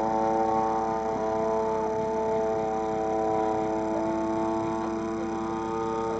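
Engine of a radio-controlled aerobatic model airplane running in flight at a steady pitch.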